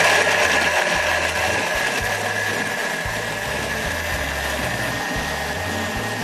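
Countertop kitchen robot (blender) running at high speed, puréeing calçots, nuts and broth into a cream: a steady whir with a steady high whine on top.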